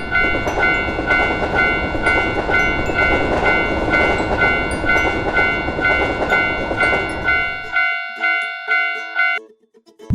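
Japanese railroad crossing alarm ringing its steady "kan-kan" bell, about three strikes a second, while a train rushes past. The train noise fades out about eight seconds in, and the bell stops about a second later.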